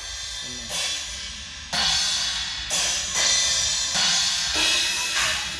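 Drum kit played live, with cymbal crashes about once a second, each ringing on into the next, over kick and tom hits, as the band's sound is being mixed.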